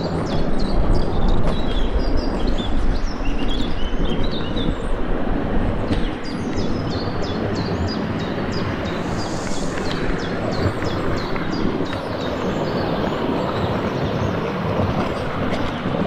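A steady rushing noise with birds chirping over it in quick, repeated high notes, thickest in the first few seconds and again between about six and ten seconds in.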